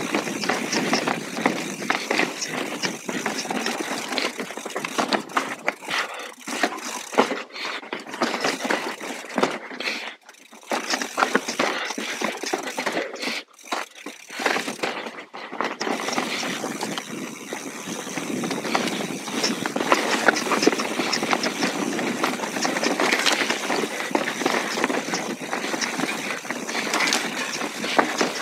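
Mountain bike riding down a rocky trail: tyres on stones and a steady run of rattles and knocks from the bike, with two short lulls about ten and fourteen seconds in.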